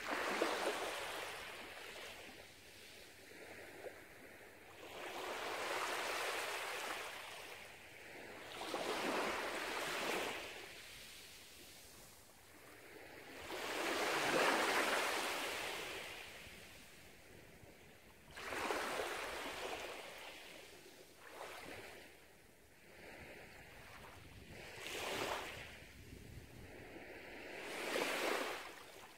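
Small waves from a calm sea lapping and washing up on a sandy beach, each soft rush of water swelling and fading every three to five seconds.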